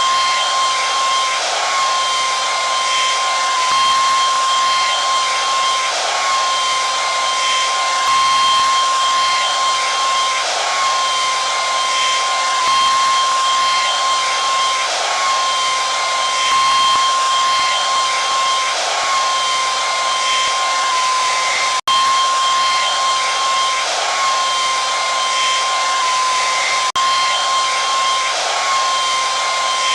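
Hair dryer running steadily: a constant rush of air with a steady whine, cut for a split second about two-thirds of the way through.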